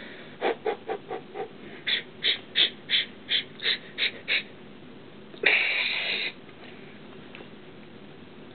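A man breathing hard through pain as a dumbbell is pressed and rolled along his shin: a run of quick, sharp hissing breaths, about three a second, then one long exhale about five and a half seconds in.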